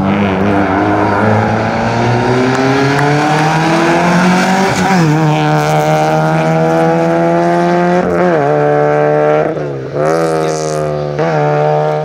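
Rally car engine at high revs, its pitch climbing steadily for about five seconds as it accelerates, then holding with several short dips as the driver shifts or lifts off. A brief high hiss comes through about ten seconds in.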